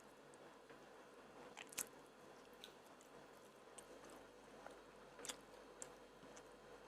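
Quiet close-miked chewing and biting of food, with a few sharp mouth clicks, the loudest about two seconds in and another about five seconds in.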